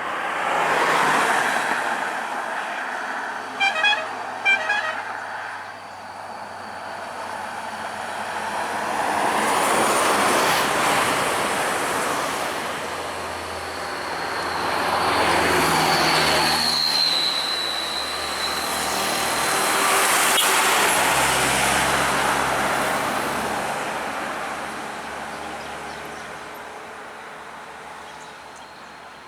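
Heavy road vehicles passing one after another, their engine and tyre noise swelling and fading four times. Two short horn toots sound about four seconds in, and a thin high whine is heard briefly near the middle.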